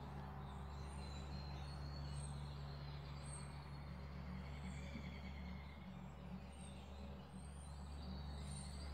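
Quiet room tone: a steady low hum with a faint hiss, and no distinct events.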